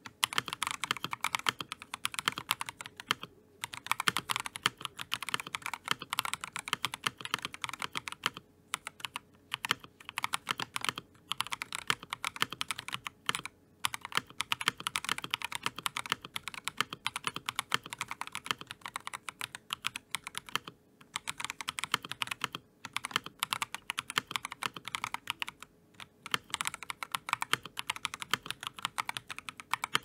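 Fast, continuous typing on an Akko 5075S mechanical keyboard with stock, unlubed Akko POM Brown switches, a polycarbonate plate and lubed stabilizers: a rapid, even stream of key clacks with a few brief pauses.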